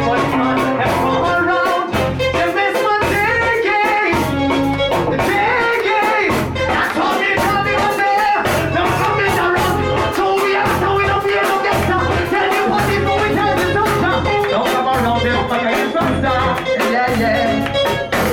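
Live reggae band playing, with a vocalist singing into a microphone over a steady bass and drum beat with cymbal ticks.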